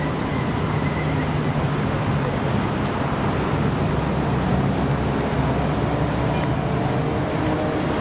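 Steady road traffic noise: car and bus engines running with a low hum under the rush of tyres.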